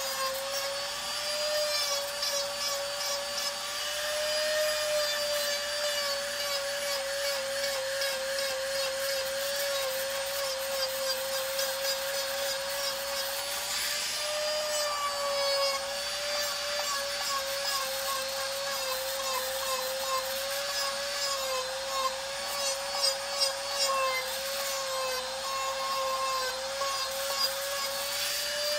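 Handheld rotary tool running with a steady whine that wavers slightly in pitch under load, its bit grinding and rubbing along the edge of a Kydex holster shell.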